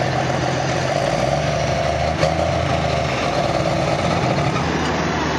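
Diesel engines idling with a steady drone: a pro stock pulling tractor stopped at the end of its pull, and a skid steer engine running as it drives up to the sled. A single sharp click about two seconds in.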